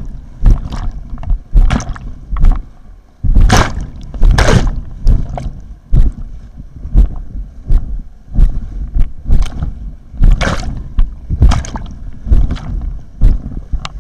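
Kayak paddle strokes splashing into rushing river water from an inflatable whitewater kayak, a steady series of sharp splashes about once a second, each with a heavy low thump.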